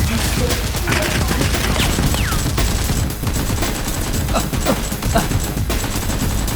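Rapid, sustained gunfire: a dense fusillade of shots over a steady low rumble.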